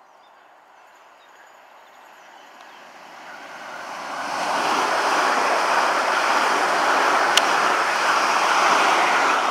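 Class 450 Desiro electric multiple unit approaching and running past the platform: a rushing noise of wheels and air that builds over the first few seconds and stays loud as the carriages go by, with a single sharp click about seven seconds in.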